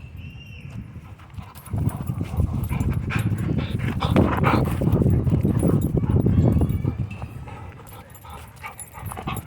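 Dogs making sounds at play, with a loud low rumble that sets in about two seconds in and fades out around seven seconds.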